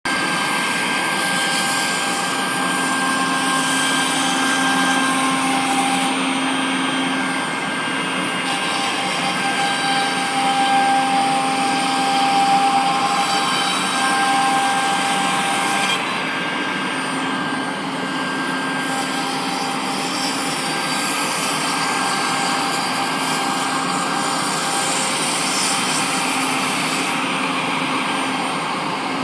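CNC router spindle cutting wood: a steady rushing noise with a high whine whose tones shift every few seconds as the cut changes.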